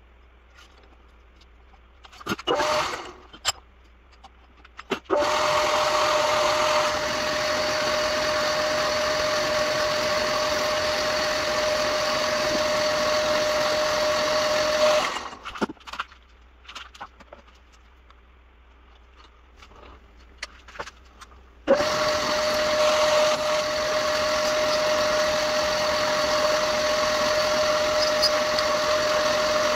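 Old metal lathe running with a steady whine while its tool faces a bronze workpiece. It starts about five seconds in after a few light clicks of handling, stops suddenly around fifteen seconds, and starts again about seven seconds later.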